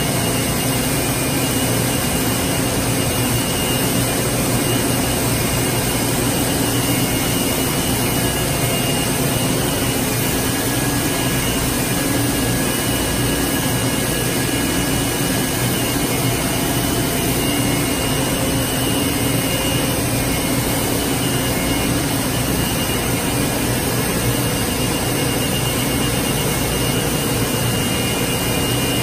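Plastic-pipe extrusion and coiling machinery running with a steady, unbroken drone, a low hum and a faint high whine running through it.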